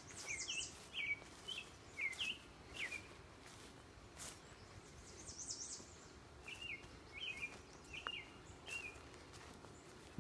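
A songbird calling: a run of short, downward-slurred chirps repeated about one or two a second, pausing and then starting again about six and a half seconds in, with a higher, thin twitter twice. Scattered light clicks and rustles of vegetation brushing against the phone.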